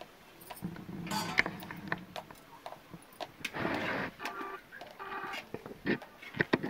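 A metal ladle stirring and scraping curry in a metal pot, with scattered clicks and scrapes, and hens clucking.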